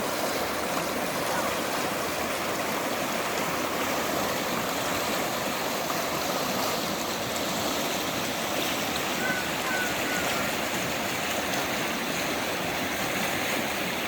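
Steady rush of Burney Creek's flowing water.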